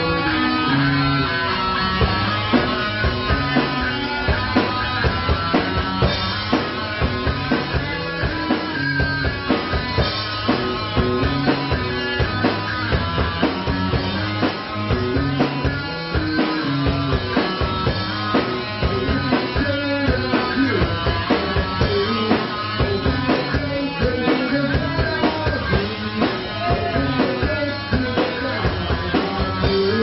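A live rock trio playing a song: electric guitar, bass guitar and a drum kit keeping a steady beat.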